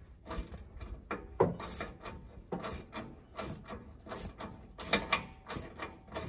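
Ratchet wrench clicking in short back-and-forth swings, about two a second, as the D-ring mounting bolts are tightened.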